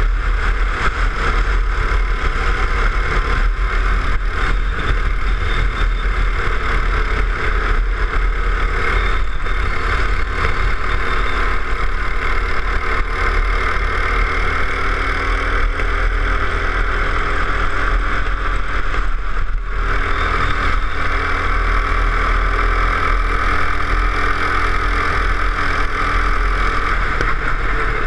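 Go-kart engine running at speed, heard onboard with wind rush and a steady low rumble; its pitch wanders slowly with speed, dips sharply about two-thirds of the way through, then picks up again.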